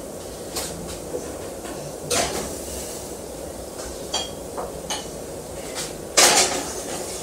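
Cake pans being put into an oven: a few separate knocks and clanks of pans and oven parts, the loudest and longest clatter near the end.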